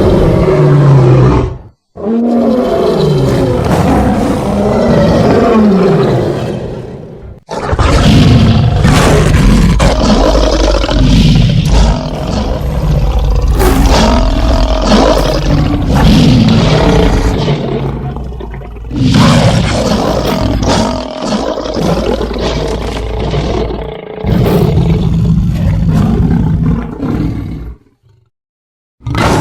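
Lion roar sound effects played one after another, each a loud, deep roar from a different recording. Brief silent breaks come about two seconds in, about seven seconds in, and near the end.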